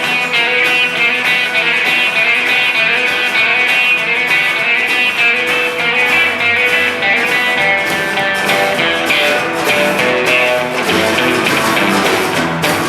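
Live rockabilly band playing an instrumental break with no singing: plucked and strummed guitars over upright bass and a steady drumbeat.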